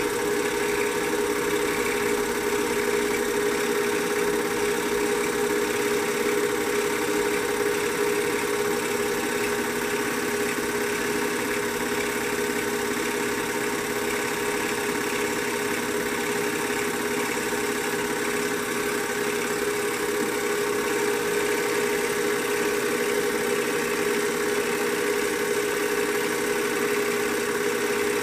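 Film projector running, a steady mechanical whir with a constant hum.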